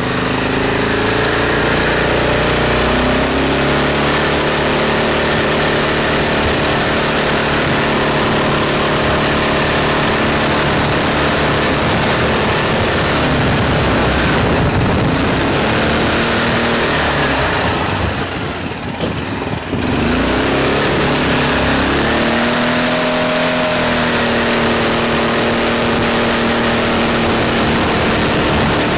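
Off-road buggy's engine running hard under throttle as it is driven over rough grass. The revs rise and fall. About two-thirds of the way through it eases off for a couple of seconds, then revs up again.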